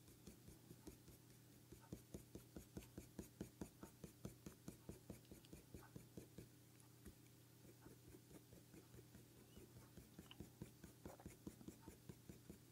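Coloured pencil drawing short, quick strokes on hot-press paper: faint, rapid scratching at about three or four strokes a second, stopping briefly about halfway through, over a faint low hum.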